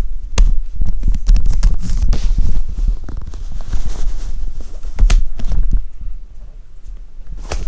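Charging cables being handled close to the microphone: rubbing and rumbling handling noise with a few sharp clicks.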